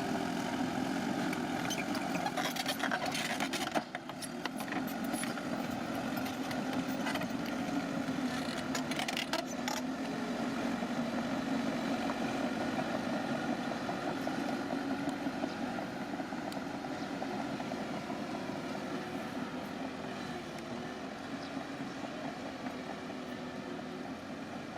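Bulldozer's diesel engine running steadily under load, with bursts of metallic clanking about two to four seconds in and again around nine seconds in.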